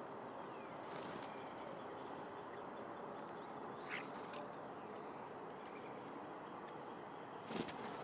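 Bird feeder ambience: a steady outdoor hiss with faint distant bird calls, a single short bird call about four seconds in, and a brief flutter of wings near the end as birds land.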